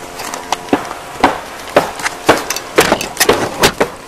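Wooden fence boards being kicked and knocked loose: a dozen or so irregular sharp wooden knocks and cracks, coming faster and louder in the second half.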